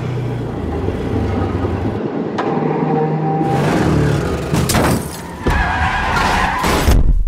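Car engine running hard at speed, with tyres squealing as the car swerves through traffic. Several sharp knocks come from about four and a half seconds in, and a loud crash near the end.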